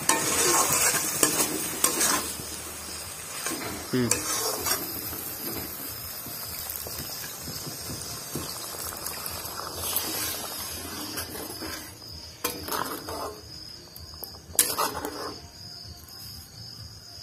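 Fried masala paste sizzling in a hot aluminium kadai as water is added, loudest in the first couple of seconds. Then a metal spatula stirs and scrapes the thinned curry, with a few knocks against the wok.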